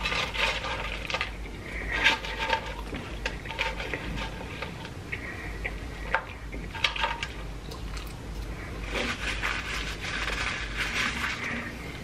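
Close-miked eating of crinkle-cut French fries: chewing and mouth sounds in several bursts of short, crisp clicks, with quieter pauses between.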